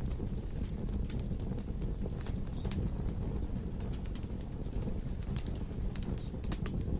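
Log fire burning in a fireplace: a steady low rumble of flame with irregular, scattered sharp crackles and pops from the burning wood.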